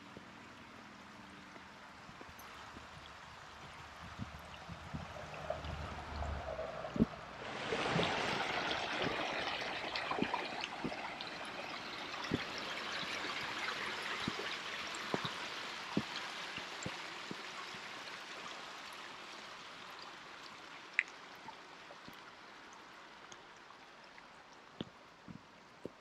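A brook running over rocks, a steady rush of water. It grows quickly louder a quarter of the way in, then slowly fades as it is passed. Light footfalls sound about once a second along the trail.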